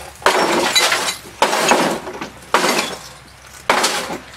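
Sledgehammer smashing into wreckage of a CRT television and a wooden table: four blows about a second apart, each a sharp crash with a clatter of breaking glass and debris.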